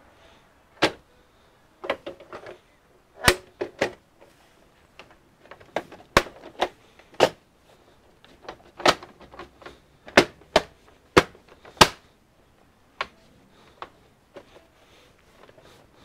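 The back cover of a Dell Inspiron One 2330 all-in-one PC snapping onto the chassis as it is pressed down around its edges: a string of sharp clicks at uneven intervals, some in quick pairs or threes, as its clips catch one after another.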